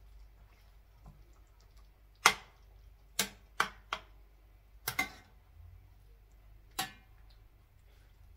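A metal slotted spoon clinking against the side of a stainless steel frying pan while stirring chicken and tomatoes: about seven sharp, ringing clinks, the first the loudest.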